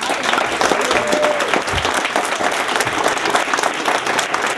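Audience applauding steadily, a dense patter of many hands clapping at the end of a speech.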